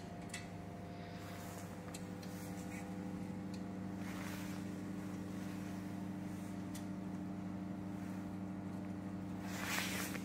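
Steady hum of a running fiber laser cutting machine and its equipment, several tones at once, with a further tone joining about a second and a half in. A few faint clicks and a brief rustle of handling on the machine.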